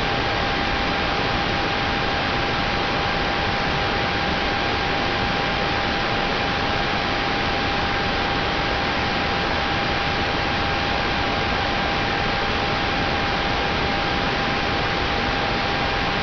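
Steady static hiss with a thin, steady hum-like tone running under it, unchanging throughout.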